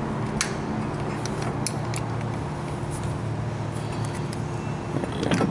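Light metallic clicks and scrapes of a flat screwdriver prying a brake pad out of a 1996 Jeep Grand Cherokee's disc brake caliper, a few at a time at first and coming quicker near the end, over a steady low hum.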